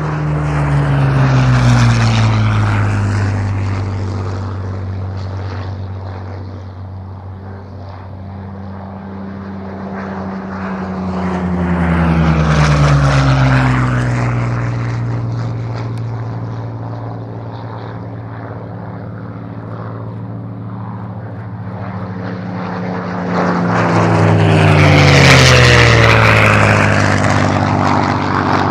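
Three low flybys by Rolls-Royce Merlin V12–engined fighters, a Hawker Hurricane and Supermarine Spitfires: the engine sound swells as each plane approaches and drops in pitch as it passes. The passes come near the start, about midway and near the end, and the last is the loudest.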